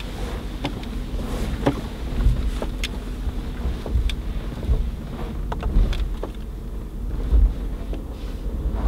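Mercedes-Benz G500 4x4²'s 4-litre twin-turbo V8 heard from inside the cabin, a deep low rumble as the truck crawls down big rock steps, with scattered knocks and clicks from the body and suspension over the rock.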